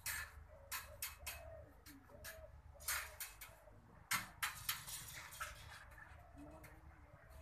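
Sharp metallic clicks and taps, irregular and at times several a second, as fence wire is twisted around the bolts of a steel-pipe mesh-making jig with a hand tool. A few short low calls sound faintly behind.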